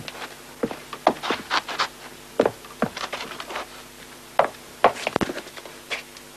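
Footsteps of hard-soled leather shoes on a wooden floor, an uneven run of sharp clicks and knocks, made as Foley to match the picture.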